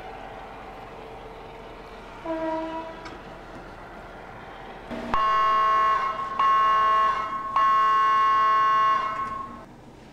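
A locomotive's chime air horn blows one short, fainter blast about two seconds in, then three loud blasts from about five seconds in, the middle one the shortest. A steady running noise from the moving train lies underneath.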